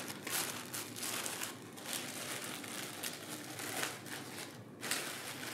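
Plastic wrapping crinkling and rustling as thin wooden trays are handled, in irregular bursts with two short lulls.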